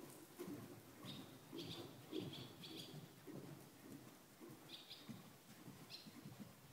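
Faint short chirps of small birds, several in quick succession about a second in and two more near the end, over the faint hoofbeats of a cantering horse on the arena footing.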